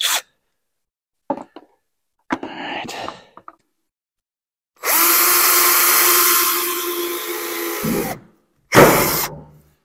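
Cordless drill running steadily for about three seconds while drilling into the edge of a metal roof panel, its pitch sagging slightly under load, followed by a short second burst near the end. Light clicks and rustles of handling come before it.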